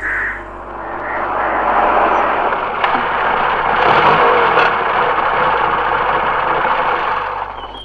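Sound effect of a car on the road: a rushing motor-and-tyre noise that swells to its loudest about four seconds in and fades away near the end, over a steady low hum.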